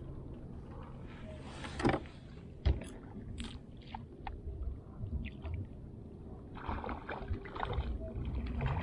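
Gear knocking and rubbing on a fishing kayak while a hooked fish is brought in, over a low rumble of wind on the microphone. There are small scattered clicks, two sharp knocks about two and almost three seconds in, and rustling near the end.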